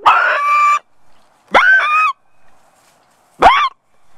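Goose honking loudly, three harsh calls that each swoop up at the start: a long one, then a shorter one, then a brief one near the end.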